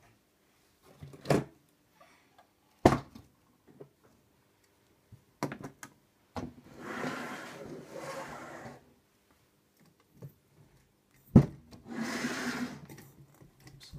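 Plastic LEGO models being handled and moved on a shelf: a few sharp knocks and clicks, the loudest about three seconds in and again near the end, and two longer stretches of scraping and rubbing as a model slides along the surface.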